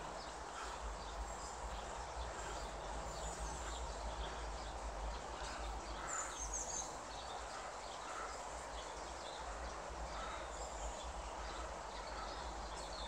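Quiet garden ambience: a steady background hiss with a few faint bird chirps, the clearest about six seconds in, over a low rumble on the microphone.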